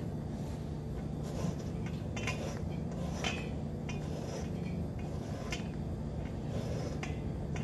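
An orange being zested on a long rasp zester propped in a stainless steel mixing bowl: irregular soft scraping strokes with light metallic clinks against the bowl, over a steady low hum.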